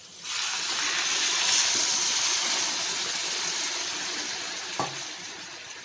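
Water poured into a kadai of sautéed yam cubes and masala: a steady rushing splash that starts at once and slowly fades as the pan fills. A brief knock comes about five seconds in.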